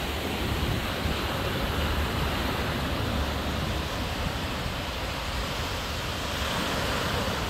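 Sea surf washing in steadily over shoreline rocks, with a low rumble of wind on the microphone.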